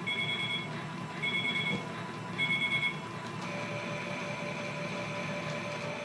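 Toy Miele washing machine beeping three times, each beep about half a second long and about a second apart, over the steady whir of the toy machines running. A new steady whine starts about halfway in.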